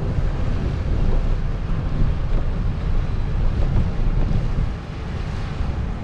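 Wind buffeting the microphone in a dense low rumble, with water washing beneath it, easing a little near the end.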